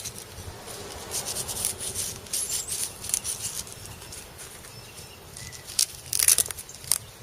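Rustling and light clicks from knives and their sheaths being handled, with a louder cluster of clicks about six seconds in.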